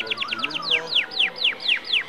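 Domestic canary singing: a fast trill of falling whistled notes that, about halfway through, slows into a run of longer, louder falling notes.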